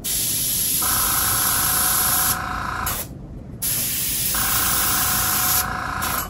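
Airbrush spraying white paint in two bursts of hissing air, each about two seconds long, with a short pause between them. These are the small highlight dots on painted bubbles. A steady hum sets in partway through each burst.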